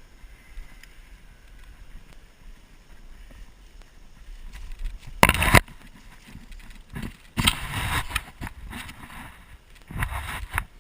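Three short bursts of noise close to the microphone, about five, seven and a half and ten seconds in, over a low outdoor background.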